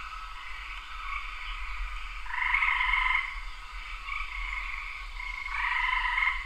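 A night chorus of frogs calling steadily, with two louder calls about a second long each, a little over two seconds in and near the end.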